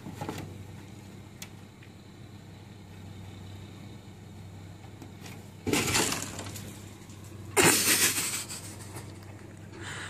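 A cat slipping and scrabbling off a snow-covered car roof and falling: two loud crunching, scraping noises about two seconds apart, each lasting about a second.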